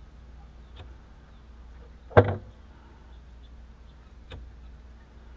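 A single sharp clunk about two seconds in, with a couple of faint clicks before and after, over a low steady hum.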